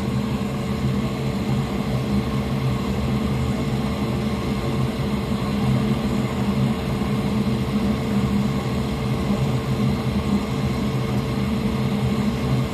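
Steady electric fan hum, even and unchanging, with a low drone and a faint higher tone.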